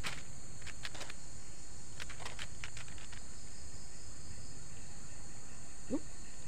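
Insects chirring steadily at a high pitch, with groups of rapid clicking pulses in the first few seconds, over a low outdoor rumble. A brief rising chirp comes near the end.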